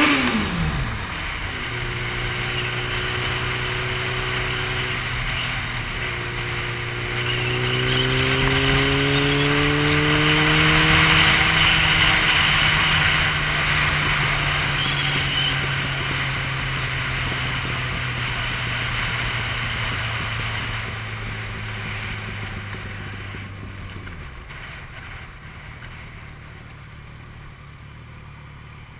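Vehicle engine running under way with wind rush: its pitch climbs as it accelerates, holds and slowly eases down, then drops away a few seconds before the end, leaving mostly wind.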